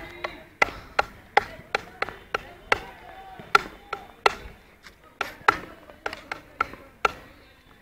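Hockey stick striking a hard ball over and over, about two to three sharp knocks a second, each with a brief ringing, some hits harder than others.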